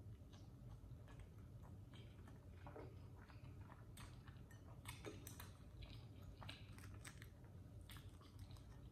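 Faint close-up chewing of a soft chili cheese dog bun, with scattered irregular wet mouth clicks. Near the end a plastic fork clicks lightly in a bowl of fries.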